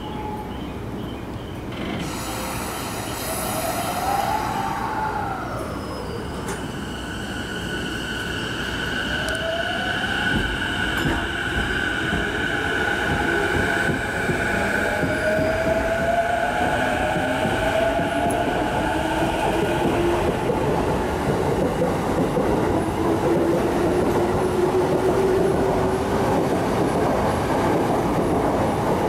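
E233-series electric commuter train pulling out of the station and gathering speed. Its traction motors give a whine that rises in pitch as it accelerates, over the growing rumble and rattle of wheels and cars going by.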